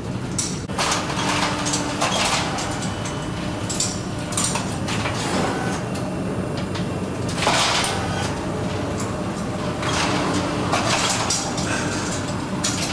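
Automated cheese-wheel turning machine at work on the ageing shelves: a steady motor hum under irregular metallic clanks, rattles and scrapes.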